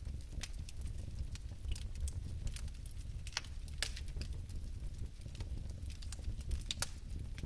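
Fire crackling: irregular sharp pops, several a second and some louder than others, over a steady low rumble.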